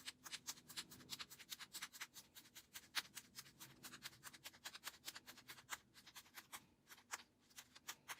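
Push pin poking a line of holes through construction paper into folded felt: a quick run of faint, sharp little clicks, several a second.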